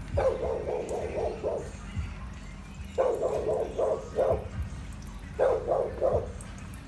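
A dog barking in three quick runs of several barks each, the runs a second or two apart.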